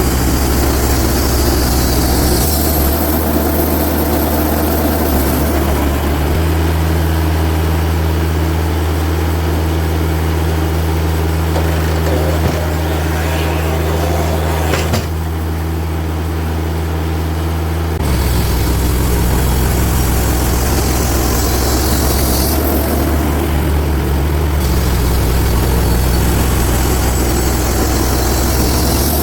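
Portable bandsaw sawmill running on its engine, a steady low drone whose note shifts several times as the speed or load changes, with a higher hiss coming and going twice.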